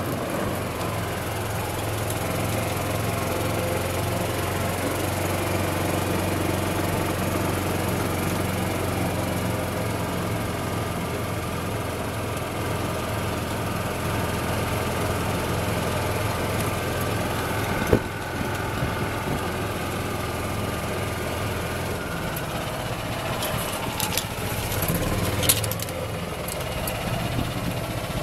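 Golf cart engine running steadily as the cart drives along, with its note dropping about 22 seconds in. A single sharp knock about 18 seconds in and a few rattling clicks a few seconds later.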